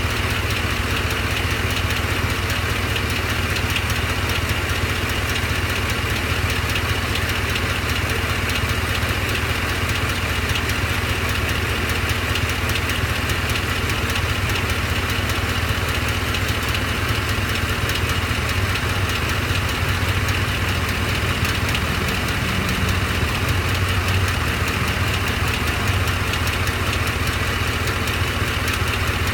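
Truck engine idling steadily with a fast, even ticking running through it, which the owner suspects is a cracked flex plate.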